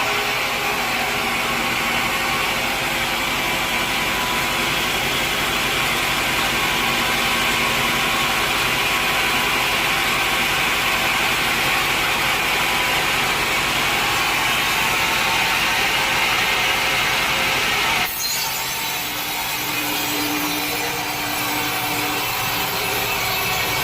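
Sawmill saw cutting steadily through a log: a continuous sawing noise over a running motor. There is an abrupt break about eighteen seconds in, and then the cutting sound continues.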